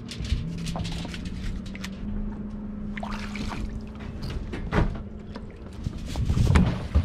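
Water sloshing and trickling between a catamaran's stern and an inflatable dinghy as the dinghy is hauled in by its painter line, with scattered knocks from handling and a steady low hum underneath. Heavy thumps near the end as weight comes down into the dinghy.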